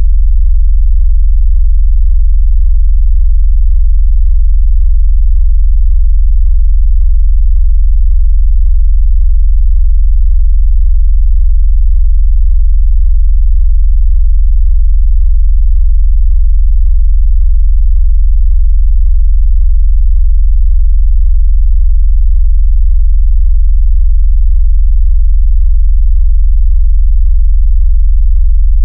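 A loud, steady, very deep synthetic bass tone, a low sine wave, played as a phone-vibration sound. It is the kind of tone used to make a phone buzz or to push water out of its speaker.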